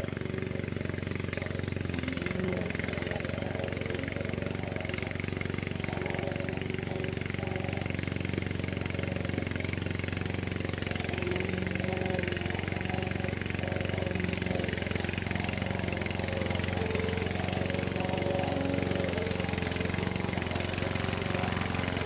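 Engine of a Vigorun VTC55090 remote-controlled tracked mower running steadily under load as it cuts through long grass, growing slightly louder as it drives closer.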